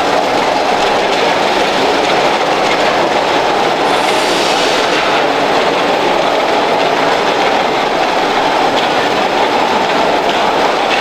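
Radio-controlled construction machines running, a loud, steady mechanical whirring and clatter of electric motors and gearboxes.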